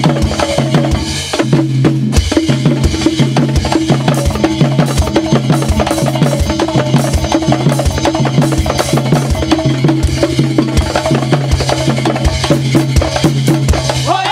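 Javanese gamelan ensemble playing an upbeat instrumental: bronze metallophones struck over kendang drumming, gong and drum kit, with a fast, even beat of drum strokes.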